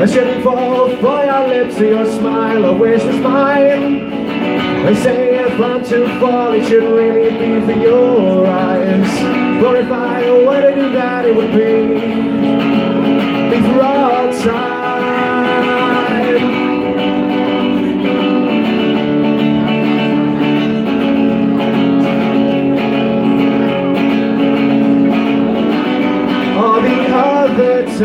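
A live song: a man singing over an amplified electric guitar. The voice carries the first half and comes back near the end, with a stretch of held guitar chords in between.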